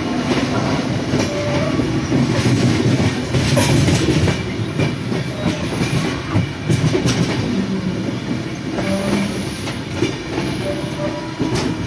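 Passenger train running, heard from inside the coach: a steady rumble of wheels on the track, with irregular clicks as the wheels pass over rail joints.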